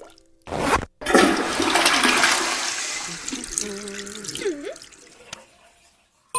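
Cartoon sound effect: a short swish, then a loud rushing, flush-like swirl of water noise starting about a second in and fading away over about three seconds, with a few short pitched blips as it dies down.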